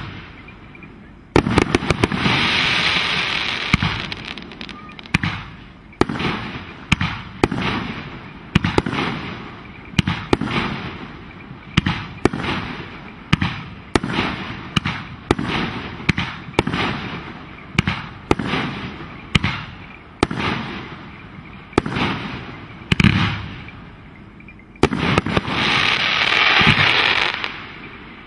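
Fireworks display: a steady run of loud bangs, about one a second, each trailing off. Two stretches of dense crackling hiss come, one a couple of seconds in and one near the end.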